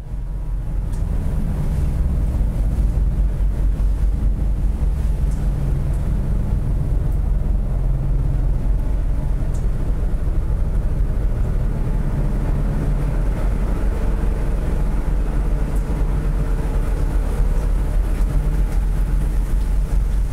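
Steady low rumble of a car ferry's diesel engines and exhaust heard on the open deck, fading in at the start.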